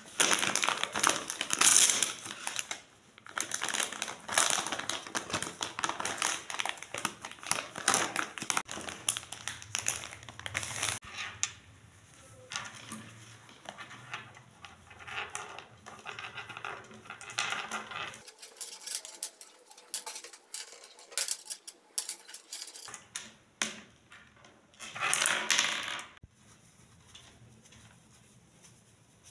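Crinkling of a plastic baby-wipes packet as it is handled, then a dense run of rustling and small clicks as a wet wipe is rubbed along a white wired earphone cable. Another short, loud rustle comes about 25 seconds in.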